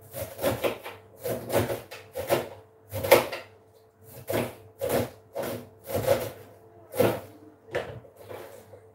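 Knife chopping cabbage on a plastic chopping board: a run of uneven knocks, about two or three a second, with a brief pause around four seconds in.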